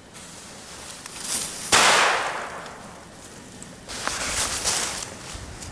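Small ground fireworks going off. About two seconds in comes a sudden loud hissing burst that fades over a second. About four seconds in comes a second hissing burst with a few crackles.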